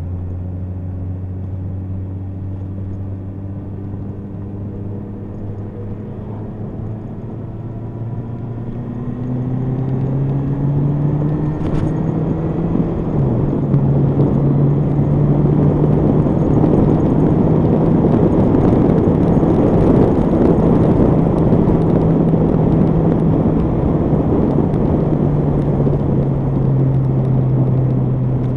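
Motorcycle engine, a Honda CBR1100XX Blackbird's inline-four, pulling with its note rising steadily for the first several seconds. It then holds a steady pitch at cruising speed while wind rush over the bike grows louder about ten seconds in.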